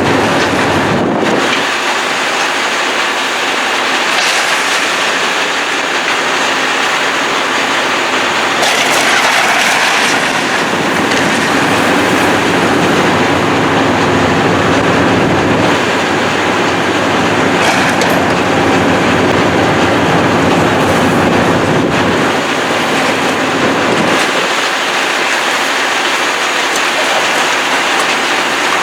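Heavy demolition machinery tearing down a building: a loud, continuous mechanical clatter and grinding, with a few sharper crashes.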